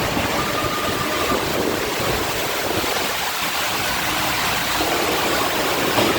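Strong storm wind blowing hard: a steady, loud rush of noise.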